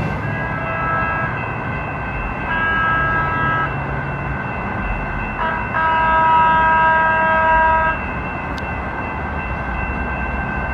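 Level-crossing warning bells ring steadily while a light-rail trolley sounds its horn three times: a short blast, a longer one, then a long blast of about two seconds. Under it is a low rumble of the approaching train.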